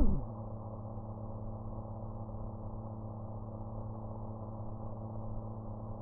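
FPV quadcopter's brushless motors: a brief throttle blip right at the start, rising and falling in pitch, then an idle hum held at one steady pitch.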